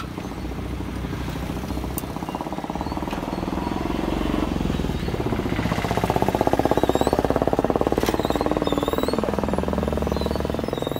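Tractor engine running with a fast, even pulsing. It grows louder about halfway through, then eases slightly.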